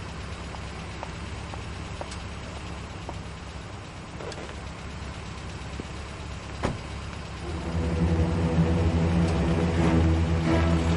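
A car's engine idles with a steady low hum. A car door shuts a little past the middle. Background music comes in and grows louder over the last few seconds.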